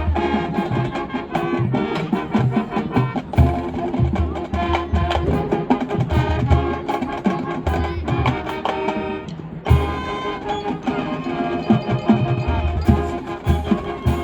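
High school marching band playing its field show: sustained chords over drums and mallet percussion, with a brief break and a strong accented hit about nine and a half seconds in.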